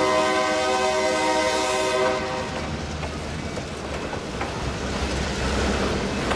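A diesel locomotive air horn holds a chord that cuts off about two and a half seconds in. Freight cars keep rolling past on the rails with a steady rumble and clatter.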